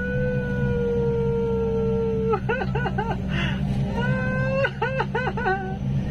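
Backhoe engine running steadily under a high howl that is held for about two seconds and then breaks into quick warbles, twice.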